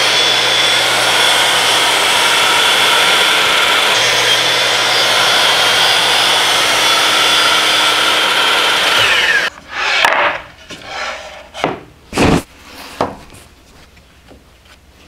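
Makita 12-inch sliding compound miter saw making a test crosscut through a plywood board: the motor and blade run loud and steady with a high whine. About nine and a half seconds in, the trigger is let go and the blade's whine falls away as it spins down. A few knocks follow as the cut pieces are handled.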